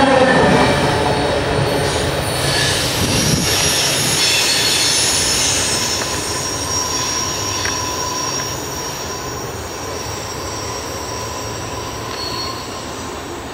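Freight cars' steel wheels squealing in several high thin tones as the train rounds a curve, over the rumble of the cars rolling on the rails. The sound fades steadily as the train moves away.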